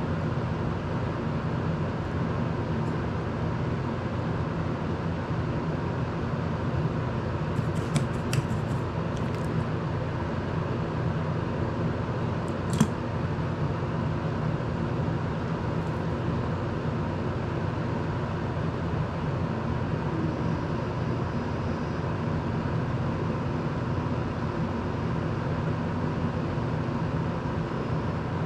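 Steady whir of an electric desk fan running, with a few small sharp clicks, a quick cluster about eight seconds in and a single louder one near thirteen seconds.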